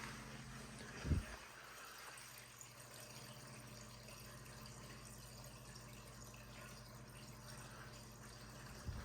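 Faint trickle and drip of water running through a reef aquarium's external overflow, with a steady low pump hum beneath; with the gyre pumps switched off the overflow is settling back to quiet. A short low thump comes about a second in and a smaller one near the end.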